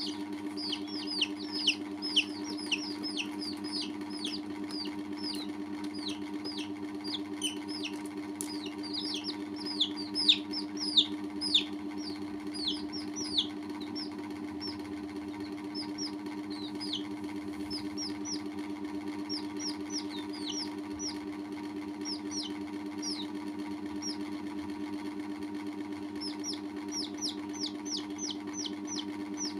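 Baby chicks peeping: rapid, high, falling cheeps, busiest through the first half and again near the end, over a steady low mechanical hum.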